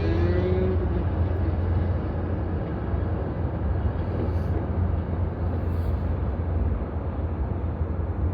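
The last of a Metro-North train horn blast dies away in the first second, leaving a steady low rumble of outdoor city noise.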